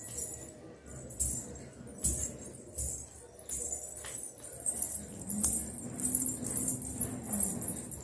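Silver bell anklets (payal) jingling in irregular bursts with each step of bare feet, with soft footfalls on a tiled floor.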